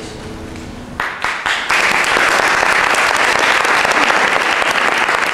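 Audience applause at the end of a live performance: a few scattered claps about a second in, then steady, full clapping from the whole room.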